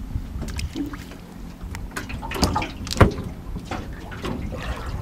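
Water lapping and splashing around a small boat, with scattered clicks and knocks from gear being handled aboard; the loudest knock comes about three seconds in.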